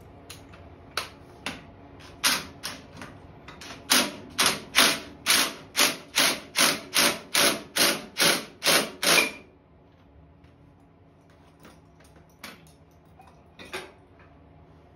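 Cordless impact driver hammering the centre bolt of a gear puller in a quick run of bursts, about two a second, pulling the flywheel off a GY6 150cc engine's crankshaft. It stops after about nine seconds, and a few light metal clinks follow.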